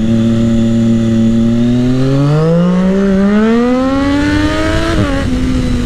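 Triumph Daytona 675R's three-cylinder engine through a full aftermarket exhaust with a Lextek silencer, under way on the road. It holds steady revs, then climbs for about three seconds before the revs drop sharply near the end.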